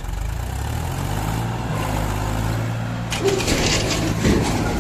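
Mahindra 275 DI tractor's three-cylinder diesel engine revving up and pulling steadily under load. From about three seconds in there is a burst of clattering, with a sharp knock just before the end.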